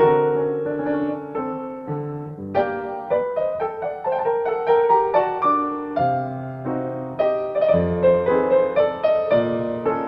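Solo piano music: a continuous run of struck notes and chords.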